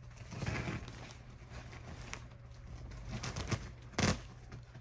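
Quilted pillow-top layer of a hand-tufted mattress being pulled away by hand: fabric and fibre rustling and tearing as the tufts holding the layers together rip loose. There is a rustle about half a second in, scattered crackles, and the loudest tearing burst shortly before the end.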